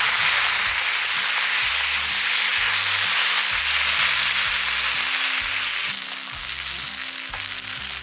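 Bacon and beans sizzling loudly in a hot folding frying pan as canned beans are poured onto the rendered bacon, the sizzle dropping to a quieter level about six seconds in.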